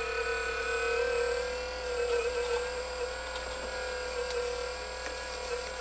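Hydraulic pump of an RC4WD 4200 XL scale RC excavator whining steadily as the machine works, its pitch wavering slightly as the load changes.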